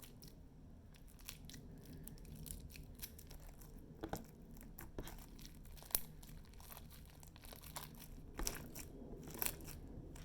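Hands kneading and stretching freshly made glossy slime: irregular sticky clicks, pops and crackles, with a few louder pops scattered through.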